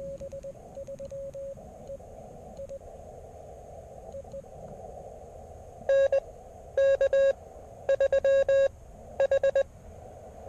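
Elecraft KX3 transceiver's audio: receiver hiss through a narrow CW filter, with a Morse code signal heard in the first few seconds. From about six seconds in, a louder keyed Morse sidetone comes in groups of dits and dahs as the operator sends CW, stopping shortly before the end.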